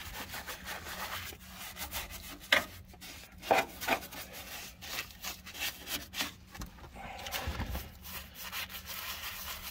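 A paintbrush scrubbing liquid rust treatment onto the rusty steel floor of a Ford Cortina Mk4's footwell, in irregular scratchy strokes. Two strokes stand out louder, about two and a half and three and a half seconds in.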